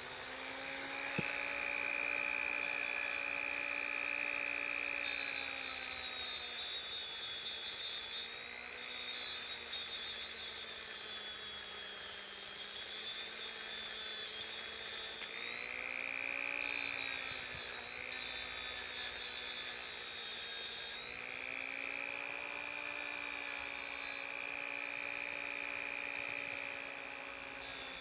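Handheld rotary tool running at high speed with a steady whine. Its pitch dips and recovers several times as it is worked against the steel ratchet parts to clean them up.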